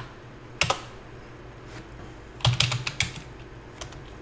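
Keys typed on a computer keyboard: a single keystroke at the start, another just over half a second in, then a quick run of keystrokes about two and a half seconds in.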